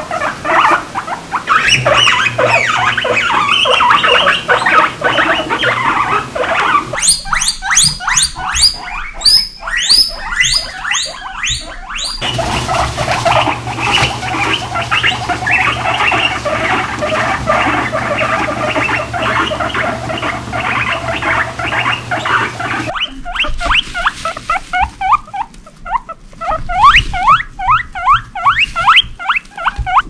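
Several guinea pigs wheeking: loud, rising squeals repeated about twice a second, in a burst about a quarter of the way in and again through the last quarter. In between comes softer, continuous squeaking and chirping from the herd.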